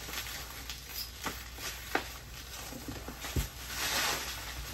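Bubble wrap and a cardboard doll box being handled: plastic crinkling and rustling with a few sharp clicks and knocks, and a louder crinkle near the end.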